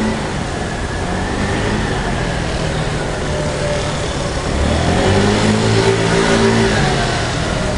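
A motor vehicle engine running on a city street, swelling louder about five seconds in with a slight rise and fall in pitch, over a steady hiss of street noise.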